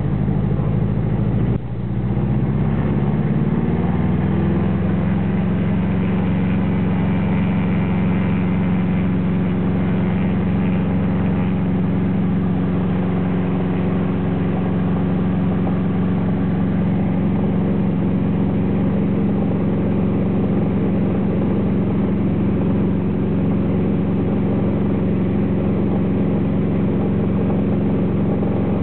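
Light aircraft's piston engine and propeller, heard from inside the cabin. The engine opens up about two seconds in, rising in pitch to a steady full-power drone for the takeoff roll on a gravel strip.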